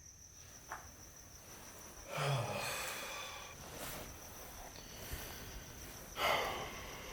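Crickets chirping in a steady high-pitched drone, with two louder brief noisy sounds about two seconds and six seconds in.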